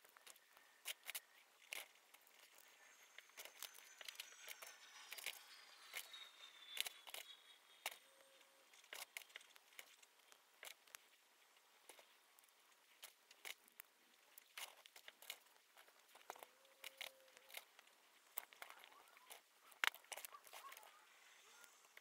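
Faint, scattered sharp clicks and crinkling from Lego plastic bricks and parts bags being handled during assembly.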